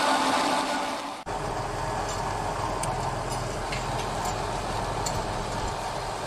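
Tractor with a rear-mounted peat ditching implement working, a dense grinding machine noise that cuts off abruptly about a second in. It is followed by a tractor engine running steadily under load with a low hum as it pulls a tined cultivator over peat, with faint light ticks.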